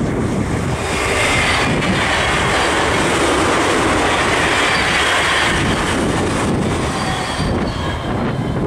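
NS Koploper (ICMm) intercity electric train passing: a steady rush of wheel and rail noise that builds about a second in and eases off near the end, with a faint high wheel squeal.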